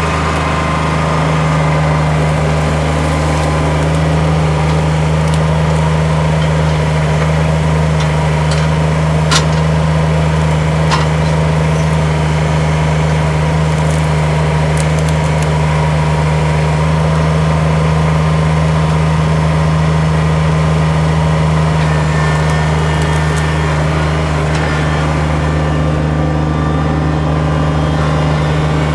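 Diesel tractor engine running steadily at a constant speed, with a few light clicks or knocks about a third of the way in.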